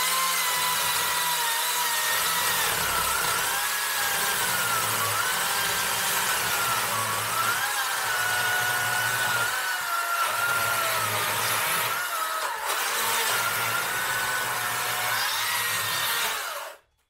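Makita 36V cordless electric chainsaw cutting crosswise through a dry apple-wood stump with a freshly hand-filed chain: a steady motor whine that wavers in pitch as the chain loads up in the wood, over the rasp of the cut. The saw stops shortly before the end.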